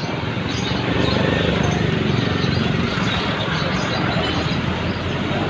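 Busy outdoor ambience: a steady din of indistinct crowd chatter, with faint short high chirps of birds.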